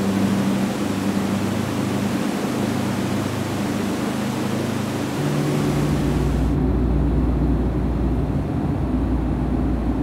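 Steady engine drone of a vehicle, a low hum with some hiss. About six seconds in it changes to a deeper rumble and the hiss drops away.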